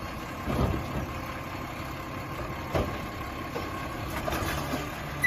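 Garbage truck's engine idling steadily, with a couple of light knocks.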